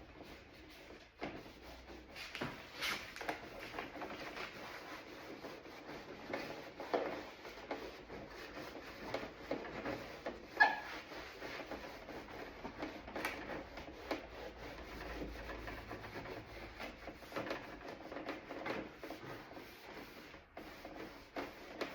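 A door panel being scrubbed by hand, with irregular rubbing and scratching strokes and a sharp click about halfway through, as dirt and scruff are cleaned off to prep the panel for paint.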